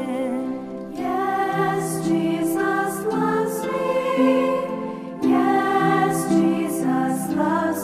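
Background music: a song with a singing voice over held instrumental notes.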